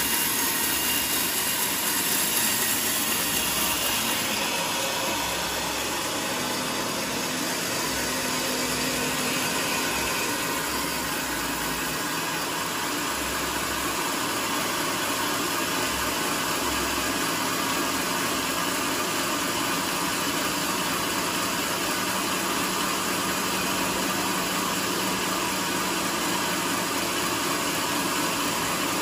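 A sawmill's large band saw running steadily. Its blade is in a teak slab for the first few seconds, where the sound is a little louder, then the machine runs on at an even level.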